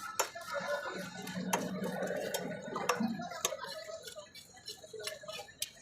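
Sharp, irregular knocks of a knife cutting through fish on a cutting block, with market chatter behind.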